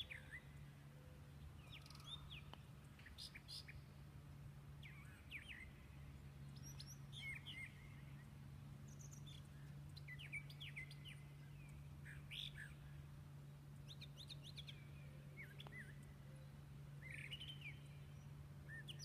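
Wild birds chirping and calling, in short scattered chirps and quick sweeps, over a faint steady low hum.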